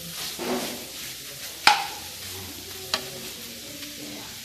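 Chicken pieces with tomatoes and capsicum sizzling in a frying pan on a gas burner as they are stirred with a spatula, with two sharp knocks of the spatula against the pan, the first, louder one under two seconds in and the second about three seconds in.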